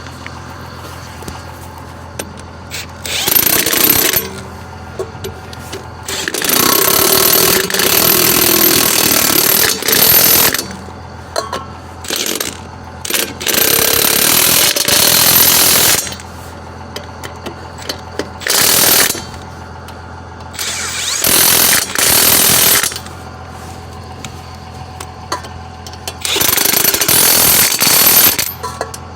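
Impact wrench hammering lug nuts onto a motorhome's dual rear wheel, in about eight bursts of one to four seconds each as it moves from nut to nut. A steady low hum runs underneath.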